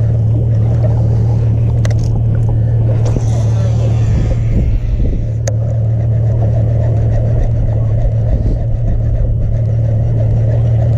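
Boat engine running at a steady speed with a constant low hum, over rushing wind and water noise; a brief hiss comes a few seconds in and a single sharp click about halfway.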